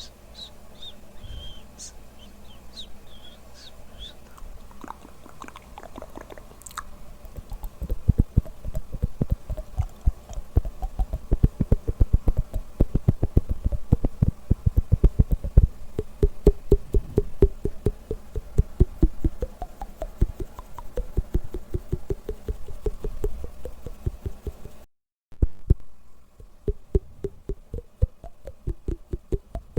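Close-microphone ASMR mouth sounds: a few short high squeaks at first, then, from about eight seconds in, a fast, dense run of clicks and pops that keeps going. The sound cuts out for a moment near the end.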